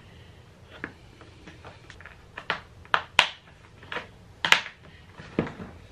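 Clear plastic file case being shut and its snap latches pressed closed: a handful of sharp plastic clicks and snaps, the loudest about three and four and a half seconds in.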